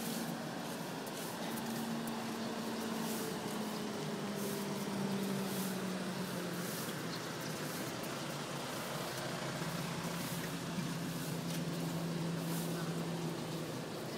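A motor running steadily, its low hum slowly sinking in pitch, over a street's background noise.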